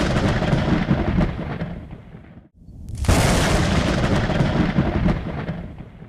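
Thunder sound effect: a rumble dying away, then a second thunderclap about two and a half seconds in, a sharp crack followed by a long low rumble that fades out near the end.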